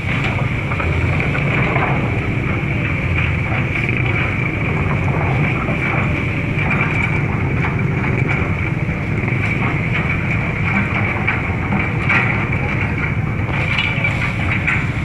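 An engine running steadily with a constant low hum, with scattered small clanks and rattles over it.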